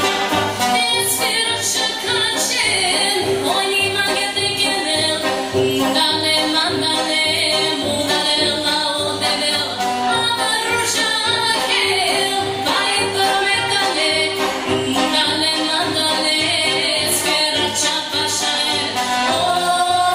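Dance music with a steady drum beat and a singing voice over it.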